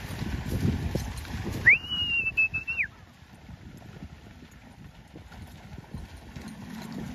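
A person's loud whistle, one note held for about a second, given by a rider driving cattle, over the dull thuds of a horse's hooves in the first few seconds.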